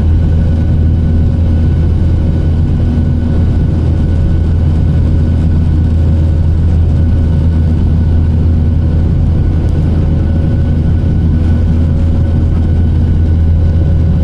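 Jet airliner cabin noise during the climb after liftoff: the steady engine and airflow drone heard at a window seat. A deep hum dominates, with a few faint steady whines above it.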